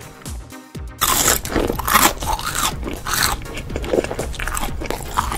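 Close-up crunchy eating sound effect: biting and chewing of crisp food in a quick run of crunches that starts suddenly about a second in, over background music.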